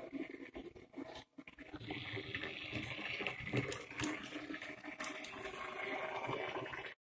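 Kleinbahn model ÖBB 5046 railcar running on the track: its motor and gears whirring with a light rattle and clicking of the wheels on the rails. It gets louder from about two seconds in as the model passes close by, then cuts off suddenly near the end.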